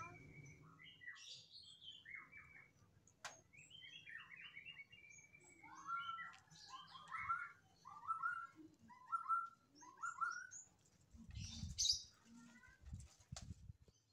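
Small birds chirping in the background: runs of short, quick chirps repeated throughout. There is a single click about three seconds in and a few dull low thumps near the end.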